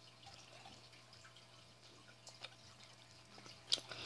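Faint wet mouth clicks and smacks of a child chewing a sour candy strip, a few scattered ticks with a sharper one near the end, over a low steady hum.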